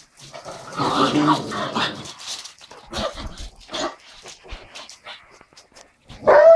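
Dogs, Rhodesian Ridgebacks among them, vocalising as they play: a dense burst of dog sounds in the first couple of seconds and scattered short sounds after it. Near the end comes a higher, drawn-out yelp.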